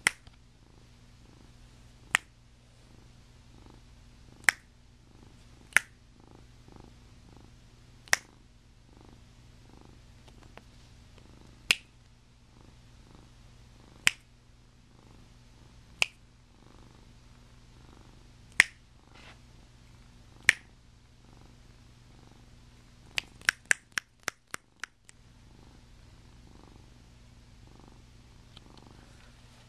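Domestic cat purring steadily, close up. Sharp clicks come about every two seconds, and near the end a quick run of about seven clicks comes while the purring briefly stops.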